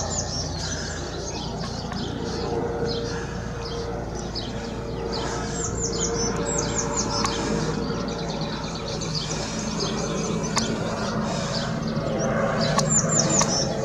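Small birds singing in runs of quick, high, falling chirps, a few times. Underneath is a steady low drone from a helicopter flying high overhead.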